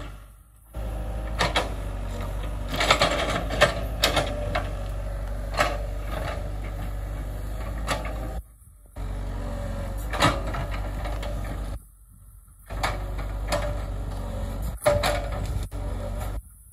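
Excavator engine running steadily with a low hum while it digs around a tree's roots, with sharp knocks and cracks scattered over it. The sound cuts out abruptly twice.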